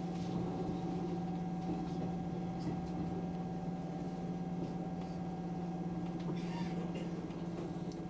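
Steady electrical hum of a Hanshin electric train, a low tone with a fainter higher whine above it, with a few faint clicks.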